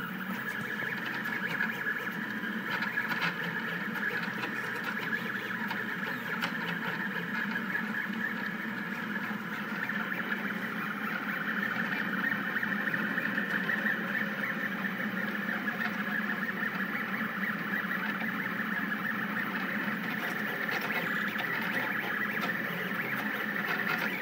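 Rostock delta 3D printer printing: its stepper motors whine steadily in shifting tones as the print head moves, with a few faint clicks in the first several seconds.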